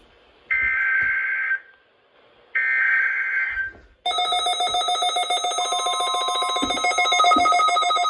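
NOAA Weather Radio SAME digital header: two one-second bursts of warbling data tones with short gaps between them, the end of the three-burst code for a Required Weekly Test. About four seconds in, several weather alert radios go off at once, a continuous jangle of overlapping electronic alarm beeps set off by the decoded test code.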